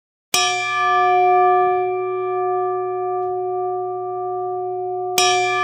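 A metal bell struck once about a third of a second in, ringing on with long, steady, slowly fading tones, then struck again near the end.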